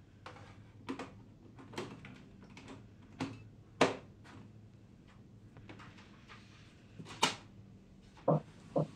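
Scattered plastic clicks and knocks as power and data cables are handled and plugged into an HP DeskJet Ink Advantage 3788 printer, the loudest knock about four seconds in and two more thumps near the end, over a faint steady low hum.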